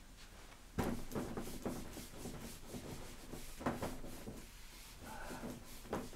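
Writing on a board: a run of short, uneven scratchy strokes, the loudest about a second in.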